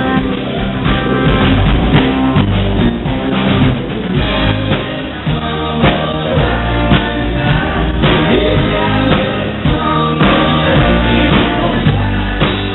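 Live country-rock band playing loudly, with drum kit keeping a steady beat under guitars and bass.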